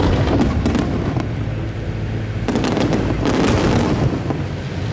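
Aerial firework shells bursting, with a quick cluster of cracks and bangs near the start and another a little after the middle.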